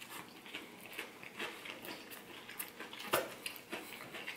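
Biting into and chewing a fried-oyster po' boy sandwich: many small crackles and clicks of chewing, with one sharper crunch about three seconds in.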